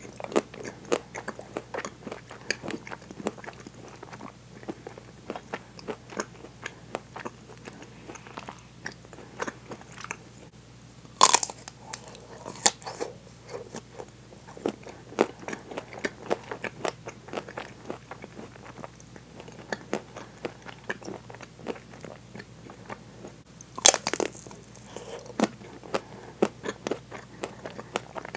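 Close-miked biting and chewing of a chocolate-coated ice cream bar with a crunchy nut-studded coating: steady crackly chewing, broken by two loud crunching bites, one a little before the middle and one near the end.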